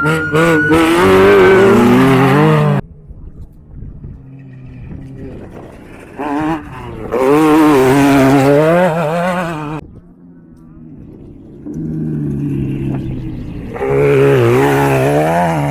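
Off-road race vehicles' engines revving hard as they come through a turn, the pitch rising and falling with the throttle. Three loud passes, the first two cutting off abruptly, with fainter engine sound between them.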